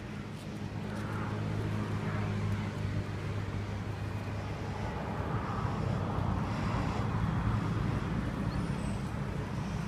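Steady low hum of a motor vehicle's engine running.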